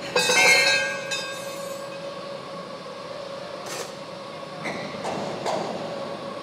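Steel slitter knives and spacer rings being handled on a slitting machine's arbor shaft. A ringing metallic clang near the start dies away over about a second, then a few lighter metal knocks follow over a steady hum.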